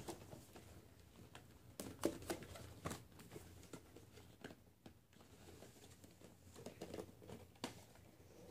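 Quiet room with a few faint, scattered knocks and rustles.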